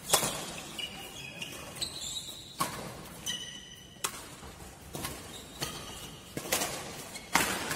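Badminton rackets striking a shuttlecock during a fast rally: sharp cracks about once a second that ring on in the hall, with brief high-pitched squeaks of shoes on the court floor between them.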